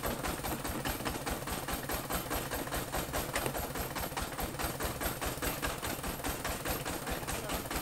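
The engine driving a portable bandsaw mill running at idle, a rapid, even knocking of about ten beats a second.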